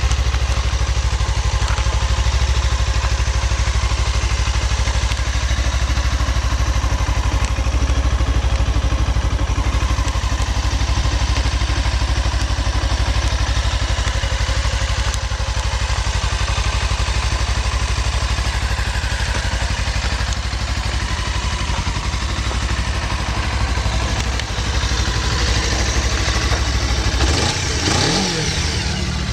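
Suzuki GW250 Inazuma's 248 cc parallel-twin engine idling steadily, then revved once near the end, its pitch rising and falling back.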